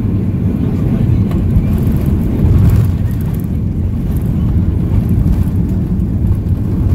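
Loud, steady low rumble in the cabin of a Boeing 737-800 during its landing rollout, the wheels running on the runway and the engines and airflow noise behind them. It swells briefly about two and a half seconds in. The ground spoilers are raised as the jet decelerates after touchdown.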